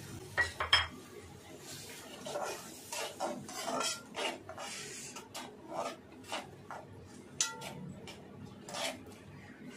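A metal spoon stirs thick cooked toor dal and spices in a metal kadhai, scraping and clinking against the pan in irregular strokes.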